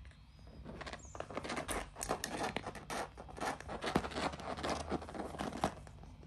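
African grey parrot chicks moving about on a hard floor: a quick, irregular run of light scratches, taps and rustles.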